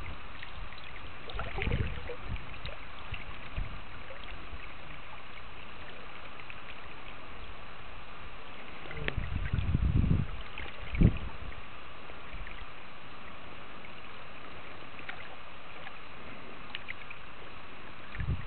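Steady rush of river current running over a shallow, rippled stretch of water. A few low rumbles on the microphone break in, with one sharp thump about eleven seconds in.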